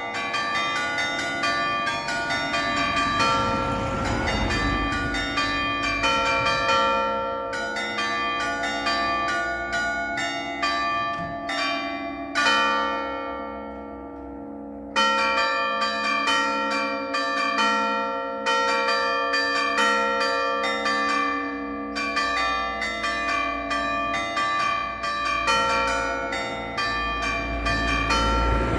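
Church bells struck by hammers, playing a quick melody of many rapid strokes with long-ringing overtones. About twelve seconds in the strokes stop and the bells ring on, fading for a couple of seconds, before the hammered melody starts again.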